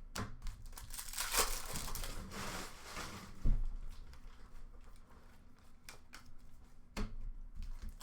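Foil trading-card pack wrappers crinkling and tearing as hockey card packs are opened, with a few sharp clicks from the cards being handled.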